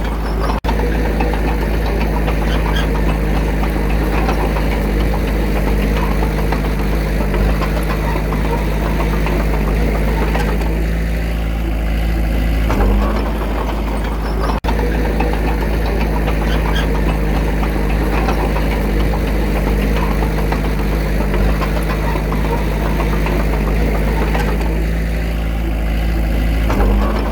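Diesel engine of a Komatsu D21A small bulldozer running steadily while working, with a shift in the engine note about halfway through and again near the end.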